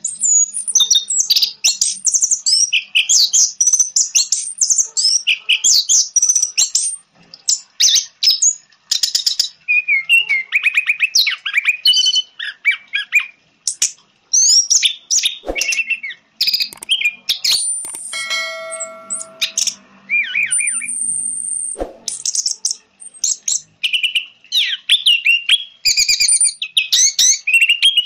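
Orange-headed thrush singing a fast, varied song of high whistled and chattering phrases. Late in the song comes a buzzy held note lasting a second or two.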